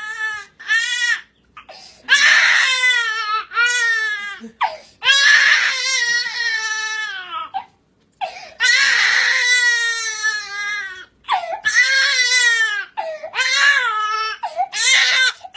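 Infant crying hard: long wails, each a couple of seconds and falling in pitch, with short breaks for breath between them. In the last few seconds the cries turn shorter and choppier.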